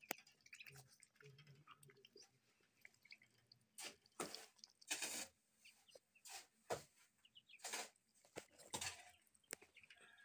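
Faint peeping of Muscovy ducklings, with several brief noisy bursts, the loudest about four to five seconds in.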